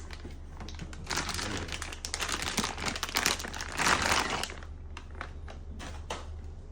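Plastic packaging crinkling and rustling as new aftermarket lower control arms are handled and unwrapped, loudest between about one and four and a half seconds in, then a few light clicks.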